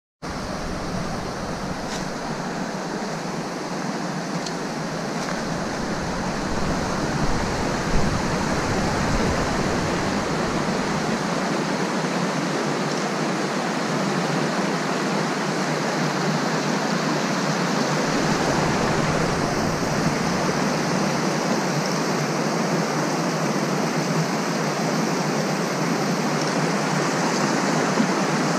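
Creek water rushing over rocks in small cascades below a stone culvert, a steady rush of water.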